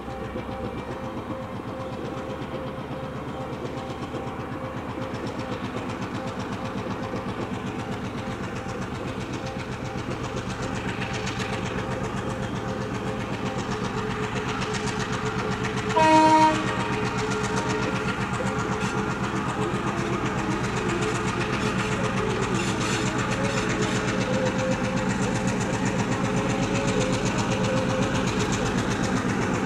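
Diesel locomotive engine running steadily under load as it hauls a passenger train, growing slowly louder, with one short horn blast about halfway through.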